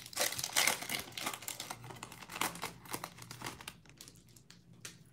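Foil wrapper of a Donruss Optic basketball card pack crinkling as the cards are slid out, then a few lighter ticks of cards being handled near the end.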